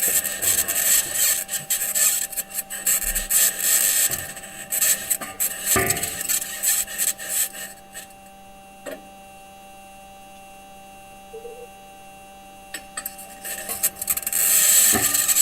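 Perseverance Mars rover's metal wheels grinding and scraping over rocky ground, picked up by the rover's own microphone, with rough scraping and clanking. About eight seconds in it drops to a quiet stretch of steady faint tones, and the scraping starts again near the end.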